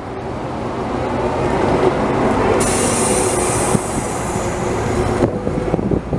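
Bus running past close by, a steady hum that grows louder, with a short hiss about halfway through; the sound drops off sharply about a second before the end.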